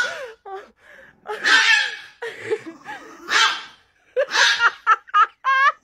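Chihuahua snarling and yapping in a run of short, breathy bursts.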